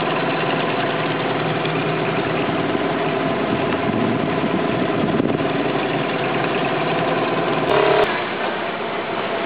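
Small outboard motor on an inflatable boat running steadily, heard from aboard, a continuous engine hum with several steady tones. A short louder burst cuts in briefly about eight seconds in.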